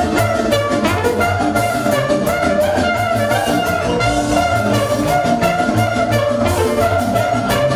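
Live band music: trumpet and saxophone playing a melody over a steady bass line and drum beat.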